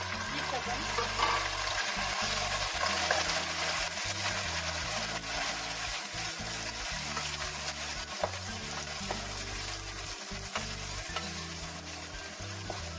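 Cubed beef sizzling as it fries in hot rendered beef fat in a pot, stirred with a wooden spoon. The sizzle is loudest in the first few seconds and eases off slowly.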